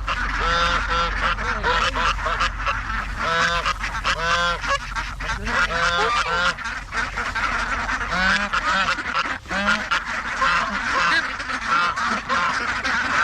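Geese honking over and over in quick clusters of short arching calls, with scattered clicks and knocks among them.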